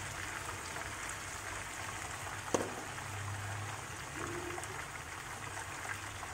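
Battered banana pieces deep-frying in hot oil, a steady sizzle, as thin batter is drizzled in to form the crispy coating. One sharp knock about two and a half seconds in.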